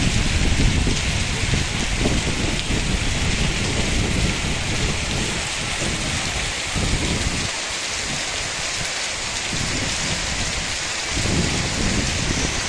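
Hail and heavy rain pelting the ground in a dense, steady hiss. A low rumble runs under it, drops away about halfway through and returns near the end.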